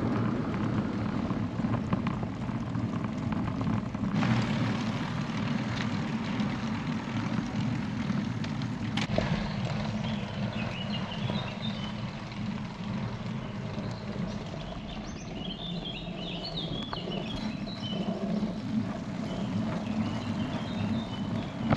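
Wind buffeting the microphone of a bicycle-mounted camera while riding uphill, a steady low rush. Birds chirp in short bursts through the middle and latter part.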